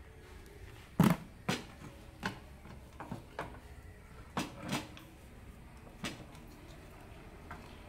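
Hard plastic parts of a solar LED lamp knocking and clattering as the LED board and battery pack are handled and fitted into the lamp housing: about eight sharp knocks, the loudest about a second in.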